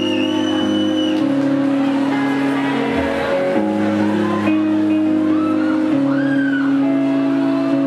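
Rock band playing live on stage: guitars and keyboard holding sustained chords that change every second or two, with a few sliding higher notes over them.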